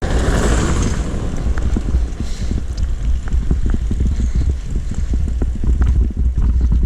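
Wind buffeting the microphone as a heavy low rumble, with many small knocks and rattles throughout.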